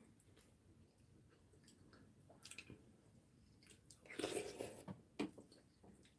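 Quiet eating at a table: chewing and soft clicks of chopsticks and a metal spoon against ceramic bowls. A louder noisy stretch comes about four seconds in, then a sharp click just after five seconds.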